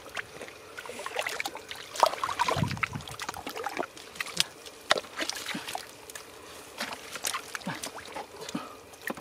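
Gloved hands and rubber boots working in shallow muddy water: irregular splashes, sloshes and wet squelches of mud.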